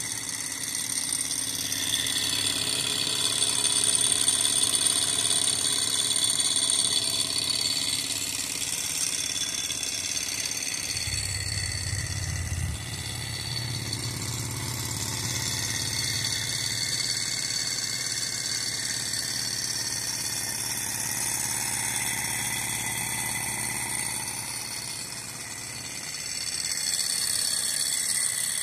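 Alpha-type hot-air Stirling engine model running unloaded with its generator taken off, a steady mechanical whir with several high-pitched tones. A low rumble comes in about eleven seconds in.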